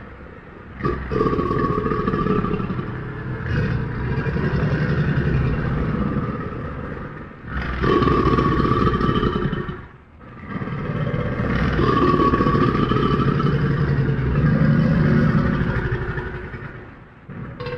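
Crocodilian growling and bellowing: long, low, rough rumbling calls several seconds each, broken by short pauses.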